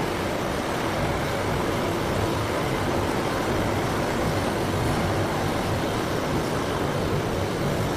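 Sawdust crusher running, a steady mechanical noise with a low rumble.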